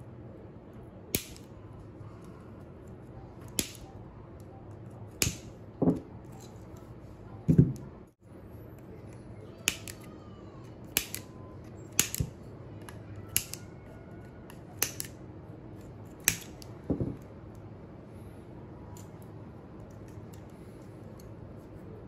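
Wire snips clipping through the nickel strip tabs between the 18650 cells of a scooter battery pack: about a dozen sharp snips at irregular intervals, a few with a duller knock, stopping a few seconds before the end.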